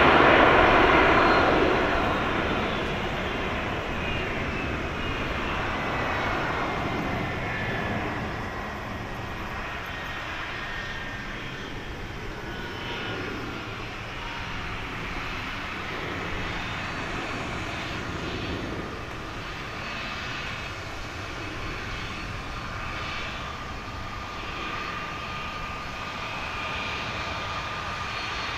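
Airbus A330-300 jet airliner, with Pratt & Whitney PW4000 engines, passing close as it comes in to land. The sound is loudest at the start, then fades, and the engine whine falls in pitch as the aircraft moves away. A steady whine from the engines carries on more faintly afterwards.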